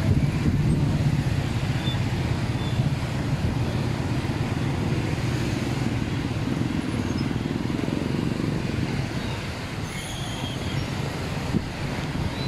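Street traffic on a city road: motorcycles and cars passing, making a steady low rumble.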